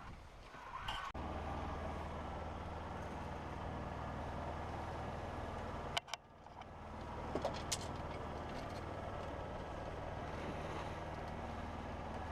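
A sailboat under way at sea: a steady low drone with a rushing wash of wind and water. It breaks off sharply about six seconds in, fades back up, and a few sharp clicks follow.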